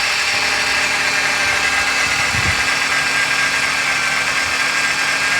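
2012 Ford Fusion engine idling steadily with a little whining noise over it, which the owner thinks sounds like a pulley and suspects comes from the belt, a pulley or a motor mount.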